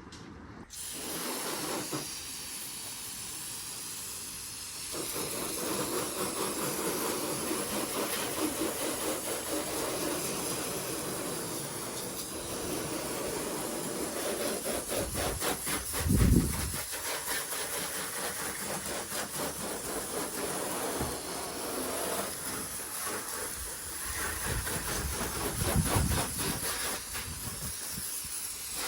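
Water spraying steadily from a hose, hissing as the car is rinsed down. Two brief low thumps come about midway and near the end.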